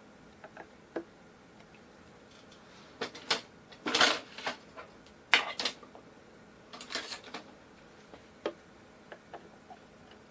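Small clicks, taps and knocks from hand work on an electric guitar body and its parts, coming in three short busy clusters about three, five and seven seconds in, with a few single ticks in between.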